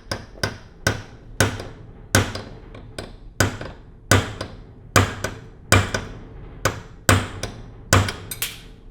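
A hammer striking a punch held on a carburetor jet, sharp metal taps repeated at a little over one a second, peening the jet to shrink its orifice so it can be drilled out to a smaller size.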